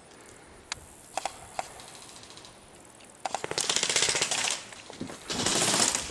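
Airsoft guns firing: a few single shots in the first couple of seconds, then two long full-auto bursts of rapid, evenly spaced shots, the first about a second and a half long and the second a bit under a second.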